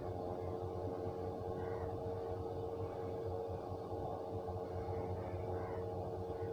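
Steady background hum with one constant mid-pitched tone running through it, and no distinct events.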